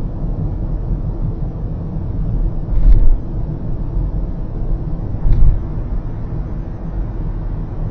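Car driving at expressway speed, heard inside the cabin: a steady low rumble of tyres and engine, with two short thumps about three seconds and five and a half seconds in.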